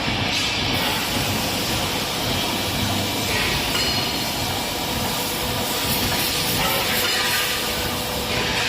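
Truck wheel rim production-line machinery running: a steady, loud mechanical din with hissing and occasional metallic clinks.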